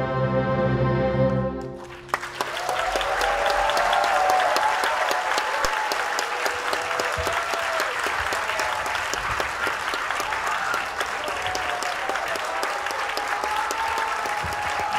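Full symphony orchestra holding a loud final chord that cuts off about two seconds in, followed by an audience applauding and cheering.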